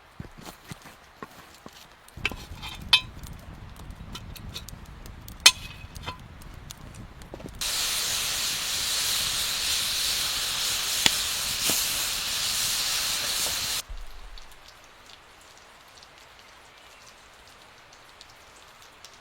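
Food sizzling in hot fat over a campfire: a loud, steady sizzle that starts abruptly about a third of the way in and cuts off suddenly about six seconds later. Before it come scattered crackles and knocks over a low rumble.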